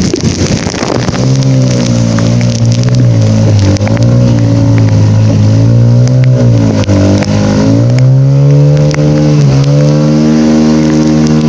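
A vehicle engine running as it drives through floodwater, its pitch dipping and rising and climbing to a higher steady note about eight seconds in. Under it is a constant hiss of heavy rain and splashing water, with scattered ticks of drops hitting close by.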